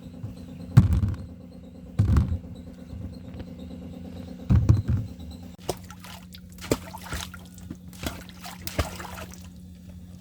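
Water trickling and splashing, with a few dull low thumps in the first half and a steady low hum underneath. The splashing grows busier about halfway through.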